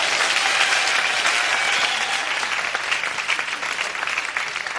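Studio audience applauding as one dense wash of clapping. About three seconds in it thins into separate claps and gets a little quieter.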